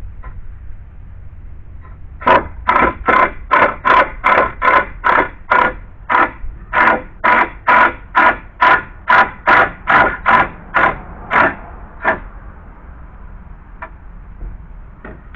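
A saw cutting through deck lumber in quick, even strokes, about three a second, with a short break about six seconds in; the sawing stops near the end.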